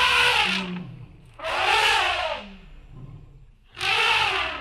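Elephants trumpeting: three harsh, brassy calls, each about a second long, spaced about two seconds apart, the first already under way.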